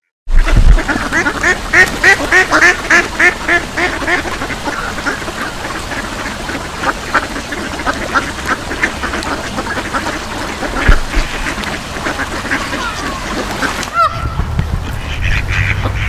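A flock of ducks quacking. A fast run of loud quacks, about three or four a second, opens the sound, then settles into a steady chorus of overlapping calls. Near the end a low rumble of background noise comes in under the calls.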